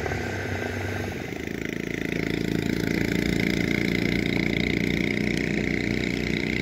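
An engine running steadily, its note changing about a second in and getting louder from about two seconds in.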